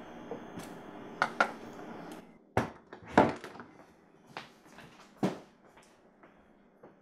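Interior door being handled and shut: two light clicks about a second in, then a few knocks and thuds, the loudest just after three seconds, followed by scattered fainter taps. A steady room hum cuts off about two and a half seconds in.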